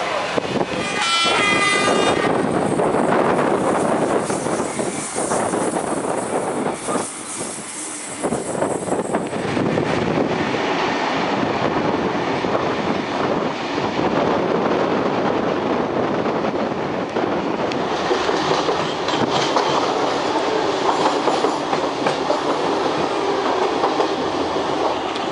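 A train running on the rails with a steady rumble and clatter. A brief high horn note sounds about a second in.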